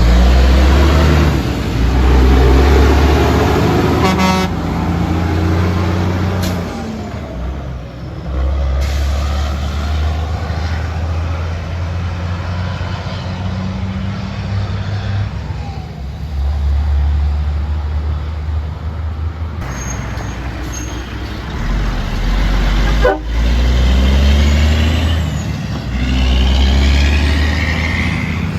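Heavy diesel trucks drive past one after another, their engines running loud and low, each swelling and fading in turn. A brief horn toot comes about four seconds in.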